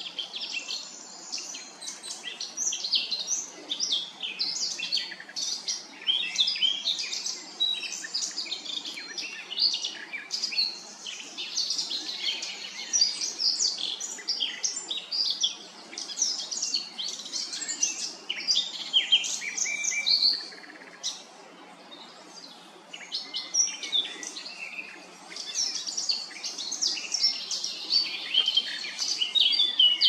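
Eurasian blackcap singing a fast, varied warbling song of quick chirps and whistled notes, pausing briefly about two-thirds of the way through before starting again.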